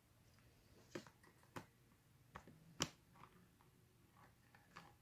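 Mostly near silence, with a handful of light plastic clicks as a clip-on USB webcam is fitted and adjusted on the top edge of a laptop screen; the sharpest click comes nearly three seconds in.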